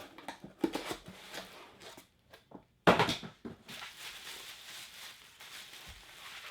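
Packaging being handled: scattered rustles and light clicks, a short silent gap, then a sudden loud rustle about three seconds in followed by steady rustling.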